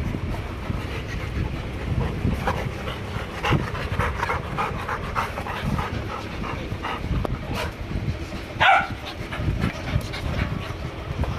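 Dogs panting close to the microphone in a quick run of short breaths, over a low rumble of wind and handling noise. Near the end comes one short, louder cry from a dog.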